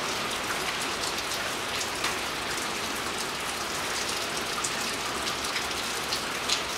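Steady hiss with faint, scattered ticks, with no distinct event standing out.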